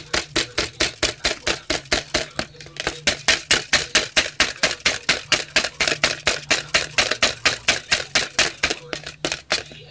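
Wire whisk beating egg whites by hand in a plastic tub, its wires clicking against the side in a steady rhythm of about five strokes a second. The whites are foaming up and rising on their way to stiff peaks.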